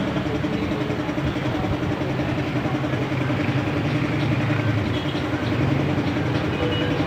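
Steady drone of a running engine or machine, a constant low rumble with an unchanging hum above it.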